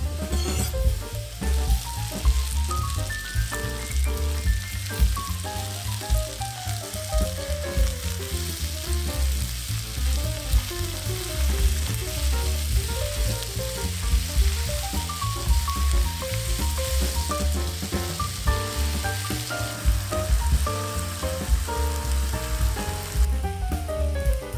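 Onions and halved cherry tomatoes sizzling in oil in a frying pan while being stirred with a wooden spatula. The sizzle stops near the end. Background music with a deep bass line plays throughout.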